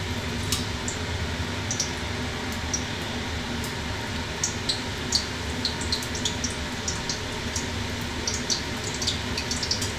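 Semolina-batter pitha deep-frying in hot oil in a kadai: the oil sizzles with scattered small pops and crackles that come more often in the second half. Under it runs the steady hum of a kitchen chimney fan.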